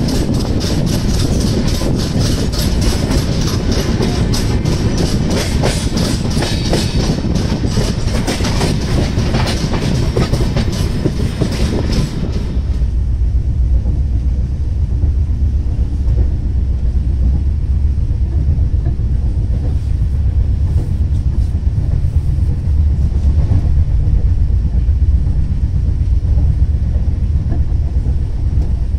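Passenger train running at speed, its wheels clattering over the rails in quick clicks. About twelve seconds in the sound turns abruptly to a duller low rumble with the high clatter gone.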